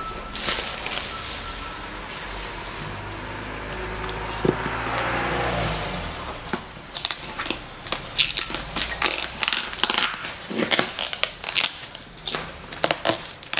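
Plastic wrapping crinkling and packing tape being pulled and torn off a cardboard box, heard as a fast run of sharp crackles through the second half. Before that, an engine hum drops in pitch about five seconds in.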